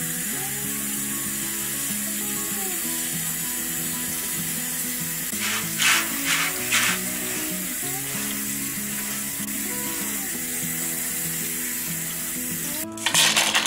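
Tap water running onto black soybeans in a stainless mesh strainer over a steel sink, a steady hiss, with a few louder splashes about six seconds in and again near the end as the strainer is moved. Background music plays throughout.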